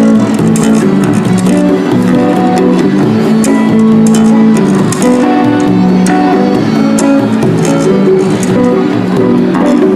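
Music played on plucked and strummed string instruments, held notes over a steady strummed rhythm.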